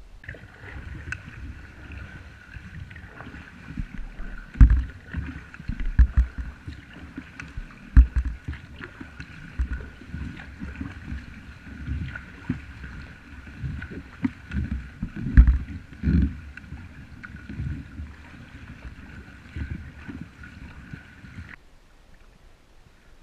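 Kayak being paddled: the paddle splashing and water slapping, with irregular low thumps and knocks against the hull, heard close up through a camera mounted on the kayak over a steady hiss. It all cuts off abruptly near the end.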